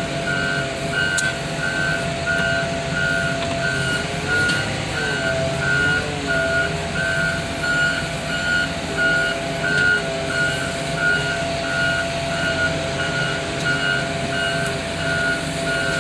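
Backup alarm on a fork-equipped loader beeping steadily, about one and a half beeps a second, over the machine's running engine, whose note dips and rises a few times as it works.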